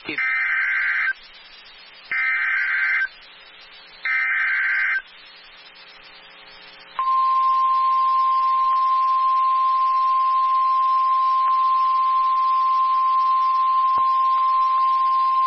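Emergency Alert System SAME header: three short raspy digital data bursts, each about a second long and a second apart. About two seconds later comes the NOAA Weather Radio 1050 Hz attention tone, a steady single-pitch tone that opens a tornado warning broadcast.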